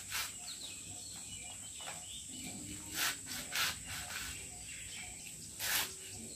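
Fresh green leaves being cut by hand on a plastic tray: a few short cutting strokes, the loudest near the end, over a steady high insect drone and bird chirps.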